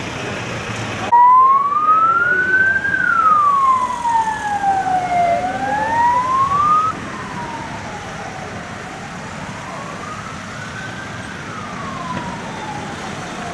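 Emergency vehicle siren wailing in a slow rise and fall, each sweep taking a few seconds. It cuts in suddenly about a second in, is loud for several seconds, then drops to a fainter wail that keeps going.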